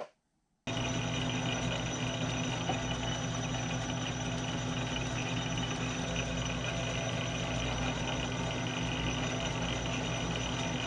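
South Bend metal lathe running steadily under power during a thread-cutting pass, a steady hum with a high whine. The sound comes in abruptly under a second in.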